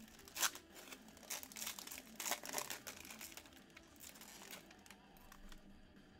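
Foil trading-card pack being torn open and crinkled by hand: a run of irregular crackles, loudest about half a second in and again around two and a half seconds in, dying down after about four and a half seconds.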